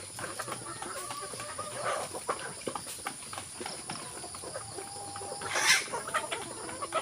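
Chickens clucking and calling with short, wavering notes, with one louder, harsher burst about five and a half seconds in.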